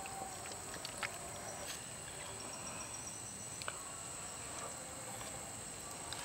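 Night insects keep up a steady high-pitched chorus, with a few faint clicks about a second in and near the middle.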